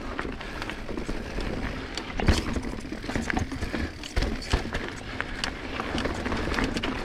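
2022 Transition Sentinel full-suspension mountain bike being ridden over rough trail: tyres rolling over dirt and rock with a steady rumble and irregular knocks and rattles from the bike. Heavier thumps come about two seconds in and again around four seconds in.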